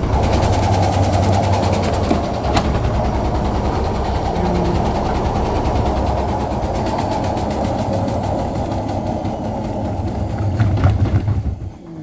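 Indesit WIL 85 front-loading washing machine spinning two wet towels at speed: a loud, steady mechanical rumble and rattle with one sharp knock about two and a half seconds in. Near the end the noise drops off as the drum starts to slow.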